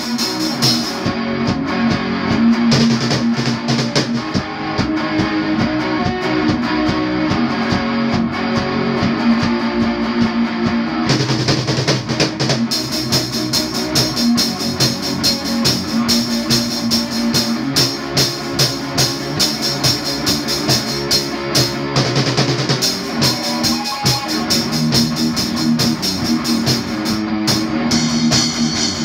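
Live rock jam: an electric guitar playing sustained chords through an amplifier with a drum kit keeping a steady beat. About eleven seconds in, cymbals come in and brighten the sound.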